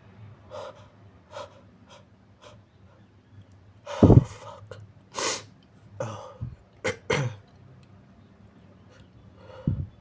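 A person's big muffled sneeze about four seconds in, after a few short sniffs and breaths. Several wet sniffles follow.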